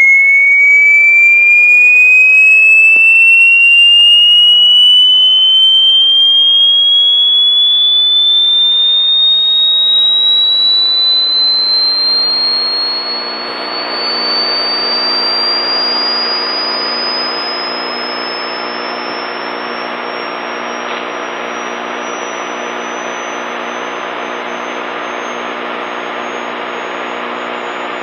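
A pure sine tone sweeping slowly upward from about 2,000 to about 7,000 hertz, heard through a Galaxy DX2547 CB radio's receiver. It is loud at first, then drops off about halfway through as hiss comes up beneath it: the tone is climbing past the top of the receiver's 300 to 2,500 hertz rated audio range.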